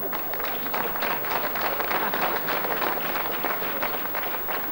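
Audience applause: many hands clapping together, building to a peak about two seconds in and thinning out toward the end.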